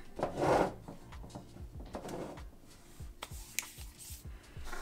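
A metal tin being moved and set down on a wooden desk: a short scraping rustle about half a second in, a softer one about two seconds in, then scattered light clicks and knocks of handling.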